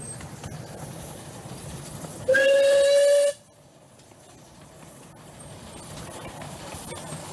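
Light railway locomotive's whistle blown once, a single steady note lasting about a second, over the running noise of the train on the track.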